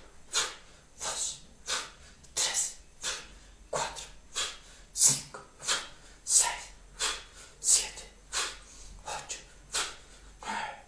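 Short, sharp exhalations, about two a second, one with each thrust of the hand: forceful abdominal out-breaths of a breathing-and-movement exercise.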